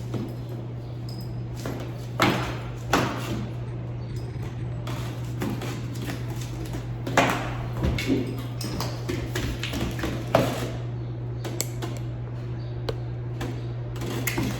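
A steady low hum with a handful of short, sudden knocks and rustles, the sharpest about seven and ten seconds in.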